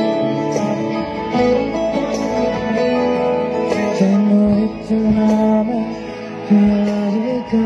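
Music: an instrumental passage led by guitar, with long held notes.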